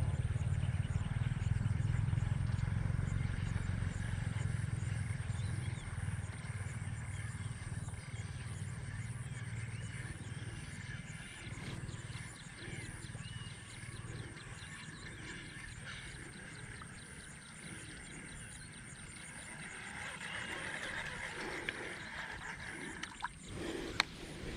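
Open-air pond ambience: a steady low rumble that fades over the first half, with a few faint high chirps scattered through. Near the end a sharp knock of the camera being handled.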